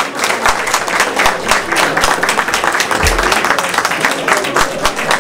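Audience applauding: dense, steady clapping from many hands, with a brief low thump about three seconds in.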